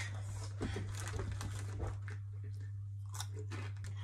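Close-up chewing of crunchy Takis rolled tortilla chips, irregular crunches clustered in the first two seconds and a few more past three seconds, over a steady low hum.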